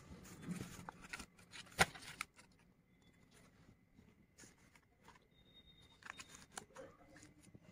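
Paper being handled: rustles and light clicks as a folded paper flap on a project-file page is lifted open and pressed down, with a sharp click about two seconds in and more rustling near the end.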